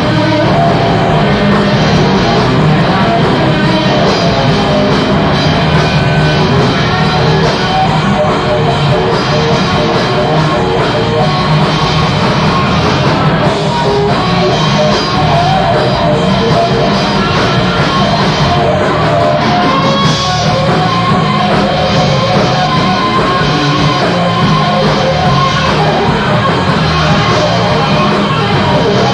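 Live concert recording of a progressive rock and jazz fusion band playing, loud and steady, with held melody notes over the full band sound.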